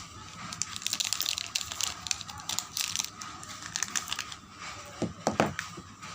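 Soap wrapper crinkling and tearing as it is opened by hand, a dense run of crackles, followed by a few sharper knocks about five seconds in.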